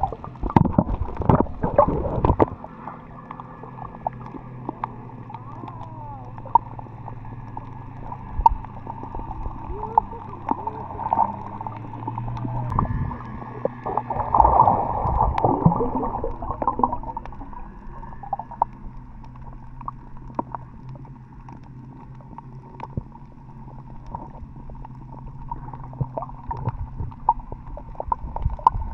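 Muffled underwater sound heard through a camera's waterproof housing: water sloshing and gurgling over a steady low hum, with louder surges in the first couple of seconds and again about halfway through.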